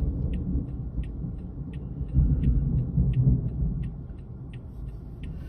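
Strong wind buffeting the vehicle and microphone in a low rumble that eases off after about four seconds, with a steady light ticking about three times a second over it.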